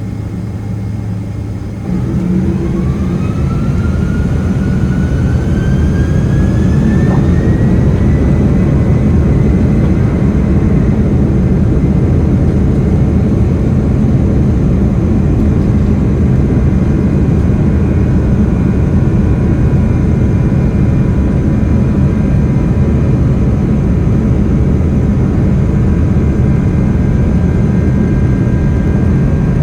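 A Boeing 767-300ER's twin turbofan jet engines spooling up to takeoff thrust, heard inside the cabin. About two seconds in the sound jumps louder, and a whine rises over several seconds and then holds steady over a loud, even rumble.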